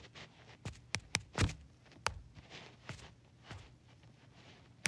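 Fingers tapping and handling a phone while it records: about eight soft, irregular taps scattered over a few seconds, with a sharper knock near the end.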